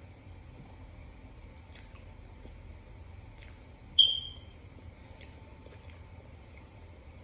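Chewing and crunching of powdery starch, with a few crisp bites about two seconds apart. About four seconds in comes a short, loud, high-pitched chirp.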